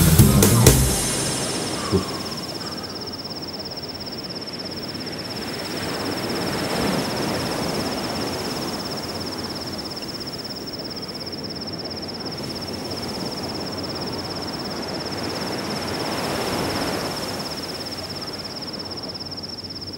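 Heavy rock music cuts off within the first second, leaving a quiet ambient bed: an even hiss with a steady high-pitched whine throughout and a single click about two seconds in.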